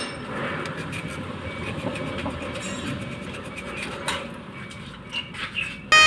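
Hand-scrubbing the metal pins of an automotive relay with a small abrasive pad to clean its contacts: a steady scratchy rubbing, with a few light clicks near the end.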